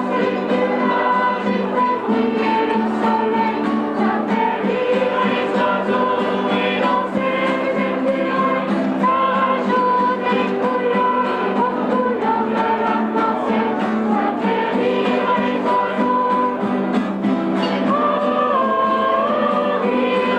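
A children's choir singing a song in unison, accompanied by several strummed acoustic guitars.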